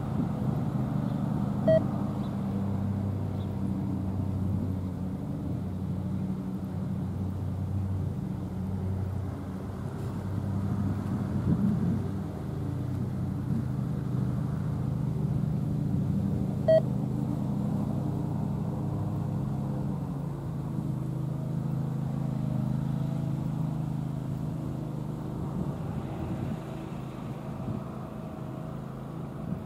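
Loaded coke hopper cars of a freight train rolling away over the rails: a steady low rumble that eases off during the last third. Two very short high squeaks cut through, about 2 seconds and 17 seconds in.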